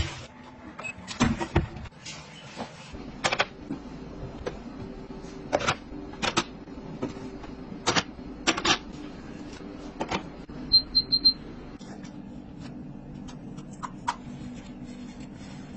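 Scattered clicks and knocks of kitchen items being handled, over a faint steady hum, with three quick high electronic beeps from an appliance's control panel about eleven seconds in.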